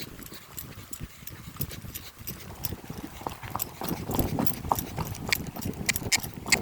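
Hoofbeats of a ridden horse, a run of sharp clip-clop strikes that gets busier about halfway through, with gusting wind rumbling on the microphone from about two-thirds of the way in.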